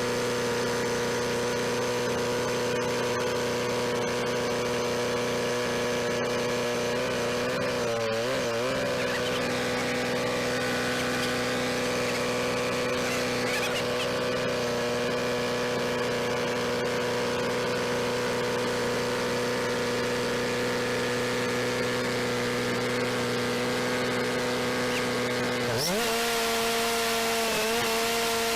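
Sawmill engine running steadily. Its pitch wavers briefly about 8 seconds in, then shifts near the end as a hissing noise rises.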